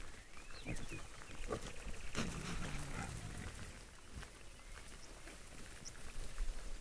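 Wild boars grunting as they forage, with a longer, louder grunt about two seconds in and a few short high squeaks and rustles around it.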